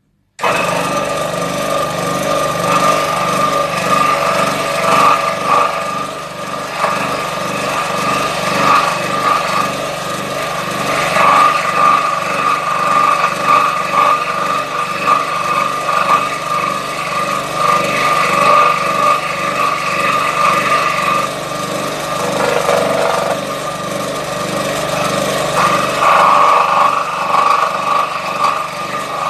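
Scroll saw cutting through MDF with a pin-end blade, starting suddenly about half a second in. A steady, fast chatter of the reciprocating blade, rising and falling in loudness as the board is fed and turned through the cut.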